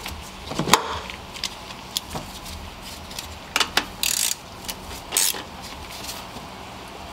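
Scattered sharp clicks and metal clinks of a ratchet and extension tightening the 10 mm nut on the alternator's charging-cable terminal, the loudest click just under a second in and a short rasp about four seconds in.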